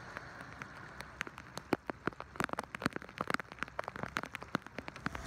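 Heavy rain pouring onto the sea: a steady hiss with frequent irregular sharp taps of drops striking close by.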